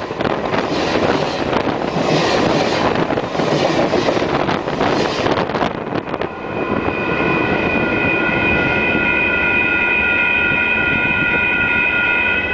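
A Caltrain Baby Bullet train passes directly over a camera lying between the rails: a loud rush of wind gusts and wheel rumble that ends about six seconds in. Then a steady ringing of bells, several pitches at once, carries on.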